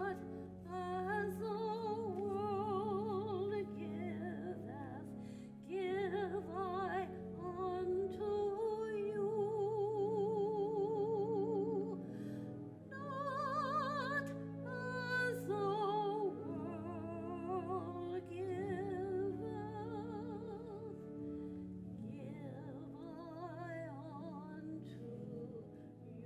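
A woman singing a slow solo with wide vibrato over sustained keyboard accompaniment.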